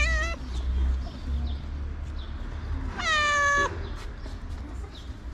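Grey tabby street cat meowing twice: a short rising-and-falling meow at the start, then a longer, louder, steady meow about three seconds in that drops in pitch at its end.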